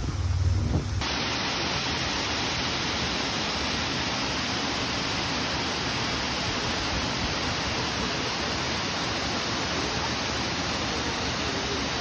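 Bridal Veil Falls on the Kagawong River, water falling into its plunge pool: a steady, even rushing noise that sets in abruptly about a second in, after a short low rumble.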